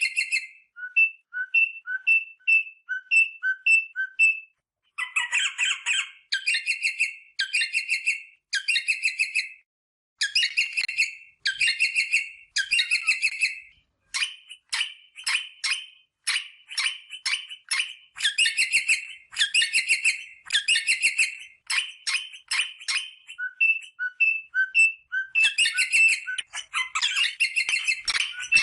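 Rosella parrot calling. It gives runs of short whistled notes that alternate between a lower and a higher pitch, a couple of pairs a second, broken by bursts of rapid chattering about a second long.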